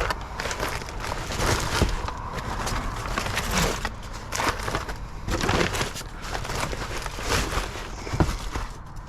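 Plastic bags and food packaging crinkling and rustling as they are rummaged through, with scattered sharp knocks.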